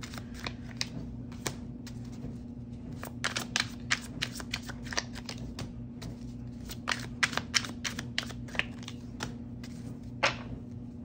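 Tarot cards being handled, shuffled and flipped, giving a scatter of sharp irregular clicks and snaps, bunched in a few quick runs, over a steady low hum.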